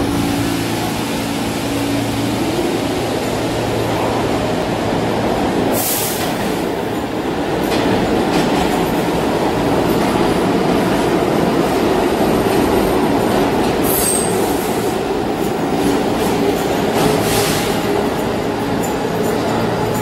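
R46 subway train moving along the platform in an underground station: a steady rumble of steel wheels on rails that grows louder about a third of the way in. Short hisses come three times, with a brief thin squeal near the second one.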